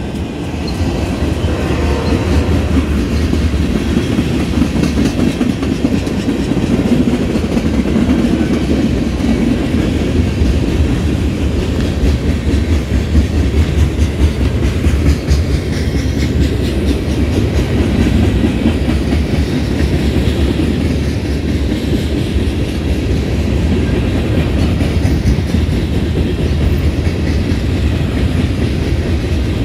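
Freight train cars rolling past close by: a steady, loud rumble of steel wheels on the rails.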